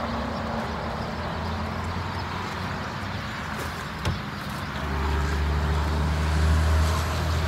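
Motor vehicle engine running over steady traffic noise, growing louder about five seconds in.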